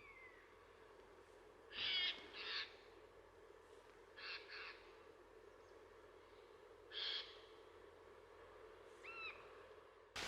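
A few short, harsh bird calls spaced out over several seconds, the loudest a quick pair about two seconds in, over a faint steady background.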